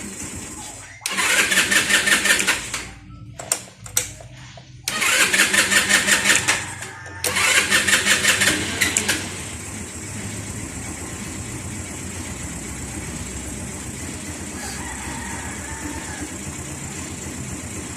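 Rusi 125cc scooter engine being cranked on its electric starter in three short tries, the last one catching about nine seconds in; the engine then idles steadily.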